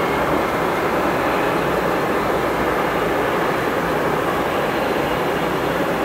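Twin jet engines of a Boeing 757-200 freighter climbing away after takeoff: a steady, even jet rumble with no change in level.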